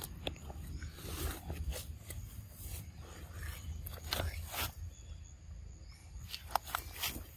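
A macaque biting into a green fruit and tearing its skin off with its teeth: irregular crunching, tearing and scraping, loudest about four seconds in and again near the end.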